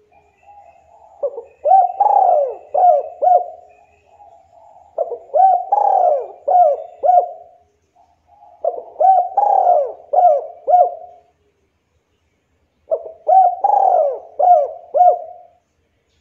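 Spotted dove cooing: four repeated phrases, each a soft low lead-in followed by a run of about five short coos, coming about every four seconds.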